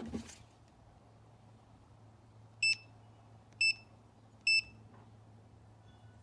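Digital multimeter giving three short, high beeps about a second apart.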